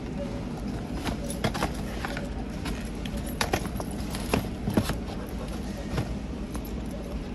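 A cardboard shoebox being handled and opened and a canvas sneaker lifted out, giving a string of sharp clicks and knocks between about one and six seconds in, with a key ring clinking in the same hand. A steady low hum lies underneath.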